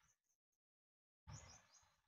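Near silence: faint background noise that cuts out completely for about three quarters of a second, then returns faintly about a second and a quarter in.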